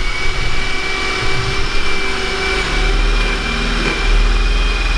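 Electric drill running steadily at speed, boring up through the floor from the crawl space; its motor whine holds one pitch.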